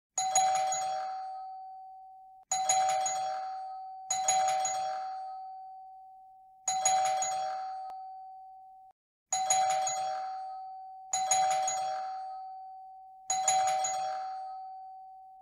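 Classic doorbell chime rung seven times at uneven intervals. Each ring is a sharp struck note that rings on and slowly fades.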